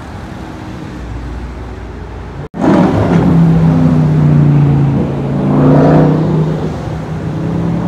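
Car passing at a moderate level for about two and a half seconds, then, after a sudden cut, a sports car's engine much louder as it accelerates past. Its note falls slightly and rises again, loudest about six seconds in.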